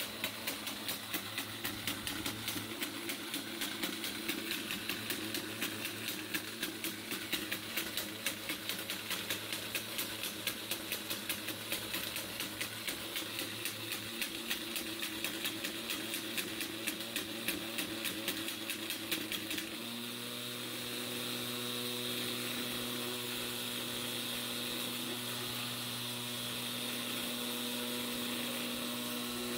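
Impulse drive running: a small electric motor whirs while the ball bearing circulates around its curved track, making a rapid, even series of clicks. About two-thirds of the way through the clicking stops suddenly and only a steady motor hum remains.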